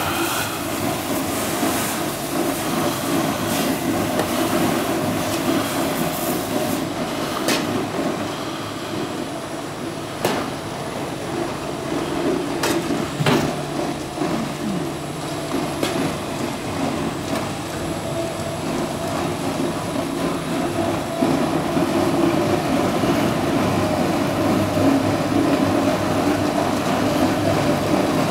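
Steady running noise of the machinery at a mobile apple press, with a few sharp knocks and scrapes as a shovel clears pressed apple pulp off the press into a small loader's steel bucket. The machine noise grows a little louder in the last several seconds.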